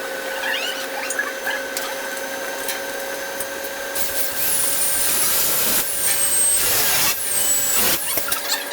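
Workshop machinery: a steady hum with a few light ticks, then a louder hiss with a high whistle that slides down in pitch, lasting about four seconds and breaking off briefly once in the middle.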